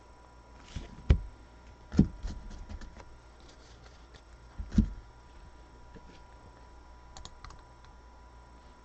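Trading cards being handled on a table: three soft knocks, about a second in, at two seconds and near five seconds, with faint clicks and rustles in between.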